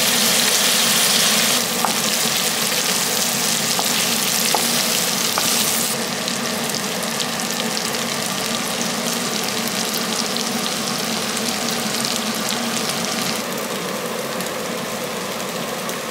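Food sizzling as it fries in a pan, a steady hiss, with abrupt drops in level about two and six seconds in.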